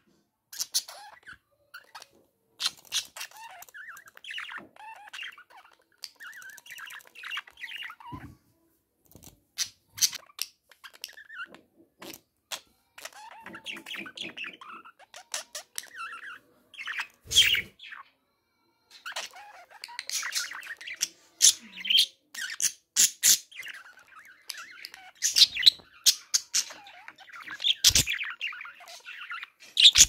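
Budgerigar chattering and warbling at its reflection in a mirror, in bursts with short pauses, mixed with many sharp clicks.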